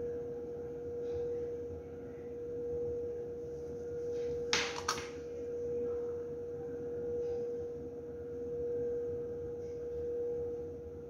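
A steady hum at one pitch over a low rumble that swells and fades every couple of seconds, with a brief sharp double click about four and a half seconds in.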